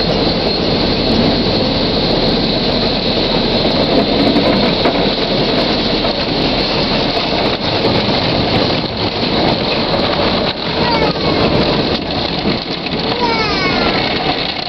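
Automatic car wash heard from inside the car: water spray and wash brushes working over the windshield and body, a loud, steady wash of noise.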